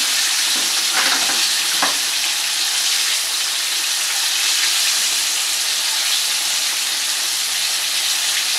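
Breaded chicken pieces deep-frying in a wok of hot oil: a steady sizzle, with a couple of sharper crackles in the first two seconds.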